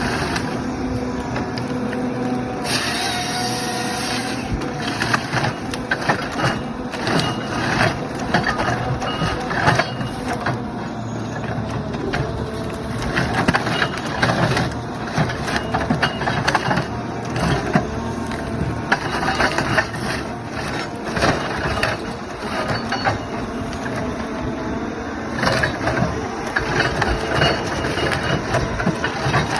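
John Deere 1270G wheeled timber harvester running under load, its engine and hydraulics droning steadily, with repeated cracks and crunches of wood as the harvester head grips and processes trees.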